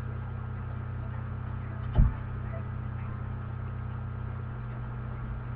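Steady low electrical hum, with a single dull knock about two seconds in.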